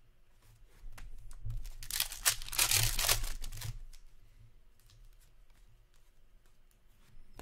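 A trading card pack wrapper being torn open: a rough ripping, crinkling noise about two seconds in that lasts over a second, among softer rustling and small clicks of cards being handled.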